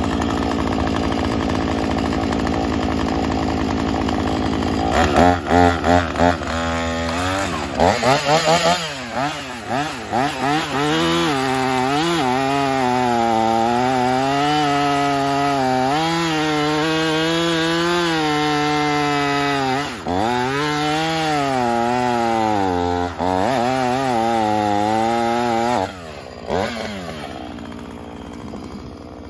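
Husqvarna 445 50.2cc two-stroke chainsaw running, blipped a few times on the throttle, then cutting through a log for about fifteen seconds, its engine pitch dipping and recovering under load. Near the end the throttle is released and the saw drops back to a quieter idle.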